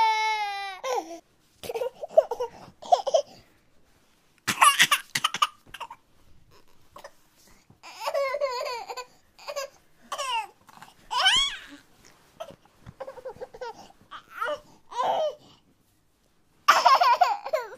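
A baby giggling and babbling in short high-pitched bursts with silent gaps between them. Before that, a falling cry ends about a second in.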